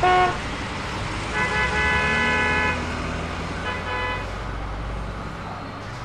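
Car horn honking: a quick double toot, then a long honk of over a second, then a shorter one, over a steady low rumble.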